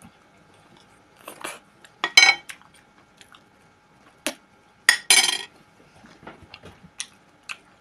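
A metal spoon scraping and clinking against a ceramic plate, with chewing and mouth sounds in between. The loudest clatters come about two seconds in and again about five seconds in, when the spoon is set down on the plate.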